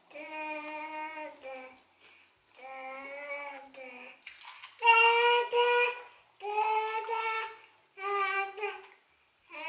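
A young child singing wordless drawn-out notes, roughly one a second with short pauses between, some sliding down slightly in pitch.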